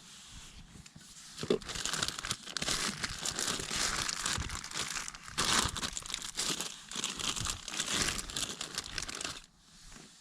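Close crinkling and rustling of crinkly material being handled, starting about a second and a half in and stopping abruptly near the end.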